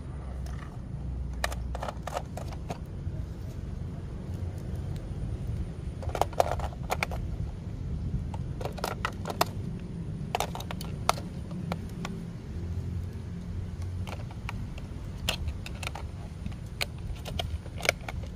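Scattered plastic clicks and taps of toy cars being handled, several coming in quick clusters, as AA batteries are pressed into a toy car's battery compartment. A steady low rumble runs underneath.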